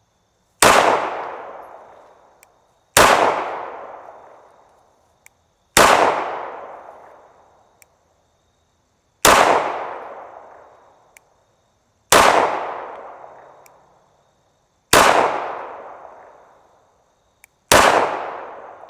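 Walther Creed 9mm pistol fired seven times in slow succession, about three seconds apart. Each shot is a sharp report that trails off over a second or two.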